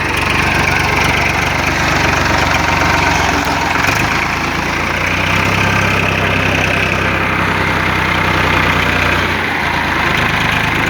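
An engine running steadily at a low idle-like speed, with a slight shift in its note about 4 seconds in and again near the end.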